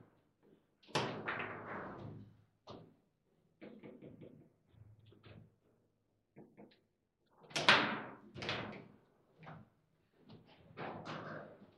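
Table football (foosball) in play: the ball and the player rods knocking and clacking in irregular sharp strikes, the loudest about seven and a half seconds in.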